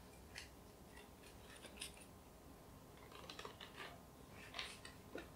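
Soft, scattered rustling and light ticking of kraft paper, a paper tag and thin twine being handled while a bow is tied onto a paper bag, a little busier in the second half.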